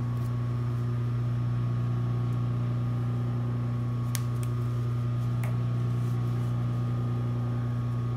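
Steady hum of an industrial sewing machine's motor running while the machine stands still, not stitching. Two faint clicks about four seconds in and again a second and a half later.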